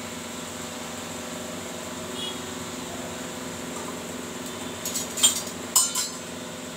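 A steady low hum, then a few sharp metallic clinks about five to six seconds in: a steel slotted spoon knocking against the kadhai as the oil heats.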